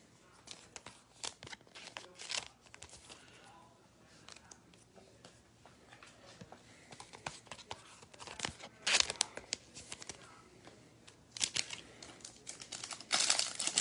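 Foil wrapper of a Topps Chrome WWE trading-card pack being torn open and crinkled by hand: scattered crackling that grows denser and louder toward the end.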